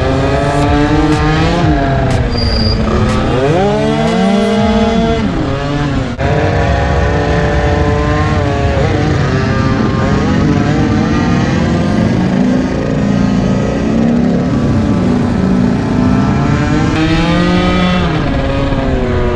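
Onboard sound of a modified two-stroke scooter engine under way, its pitch rising as it accelerates and falling as it eases off, several times over.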